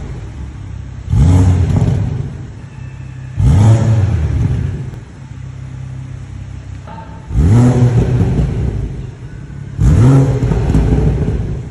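BMW 440i's B58 turbocharged 3.0-litre inline-six revved four times from idle, each rev a quick rise in pitch that falls back to a steady idle.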